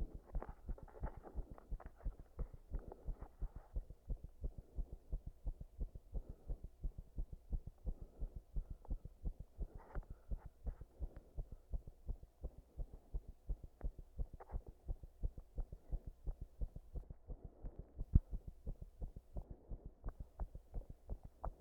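Human heart sounds heard close up: a continuous run of low lub-dub thumps, with a scratchy rubbing noise over them now and then and one louder thump about eighteen seconds in. The beats are irregular, an arrhythmia that the uploader brings on by compression.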